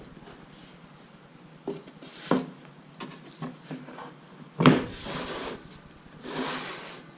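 Wooden crosscut sled handled on a table saw top: a few scattered knocks of wood, the loudest a sharp thump about four and a half seconds in, followed by two short scraping slides.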